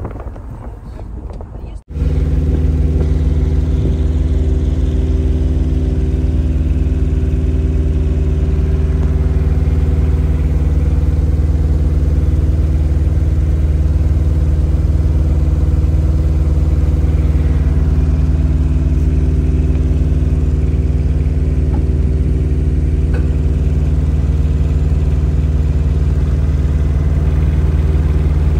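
Diesel engine of a Murray River cable ferry running steadily under way: a loud, deep, even drone that does not change. It cuts in sharply about two seconds in, replacing wind noise on the microphone from the moving car.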